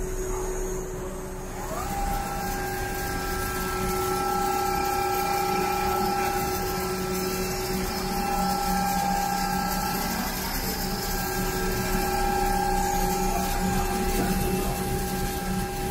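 Duvet quilting machinery running: a steady electric hum with a higher motor whine that glides up about two seconds in, then holds, swelling and fading.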